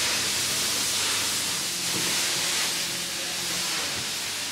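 A steady, loud hiss like escaping steam, with a faint low hum beneath it.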